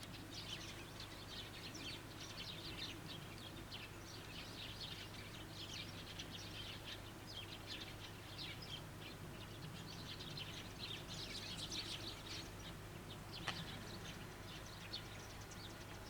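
Small birds chirping faintly in many short, overlapping calls, over a low steady hum.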